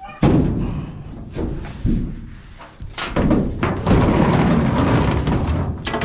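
Sheet-metal body of a clothes dryer banging down onto a ute's steel checker-plate tray with several hard thumps, then scraping as it is shoved along the metal for the last few seconds.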